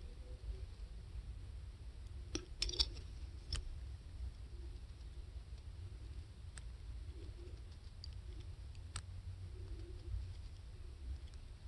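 Steady low rumble with a few sharp, faint clicks: a quick cluster about two and a half to three and a half seconds in, then single clicks later on.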